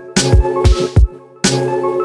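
Electronic music with deep kick-drum thuds about three a second under sustained synth chords. It breaks off briefly about a second in, then comes back in loud.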